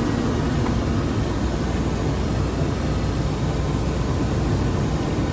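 Heavy truck's engine running with a steady low rumble.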